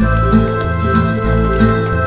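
Background music with a regular rhythm of short, evenly paced notes.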